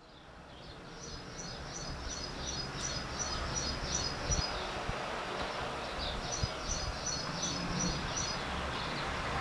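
Outdoor field ambience fading in, with a small bird giving two series of short high chirps, about three a second.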